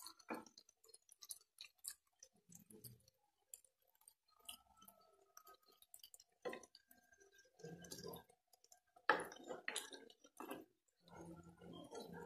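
Soy-sauce braising liquid simmering around chicken pieces in a skillet, with faint, irregular pops and clicks. A spatula clinks against the pan at the start.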